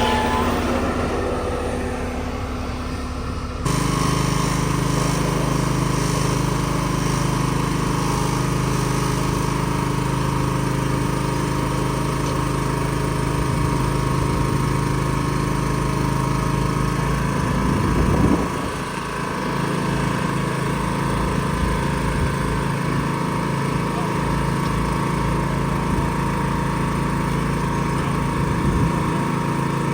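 An engine running at a steady speed. The sound changes abruptly about four seconds in, from a lower hum to the steady engine note, and there is a brief louder moment about halfway through.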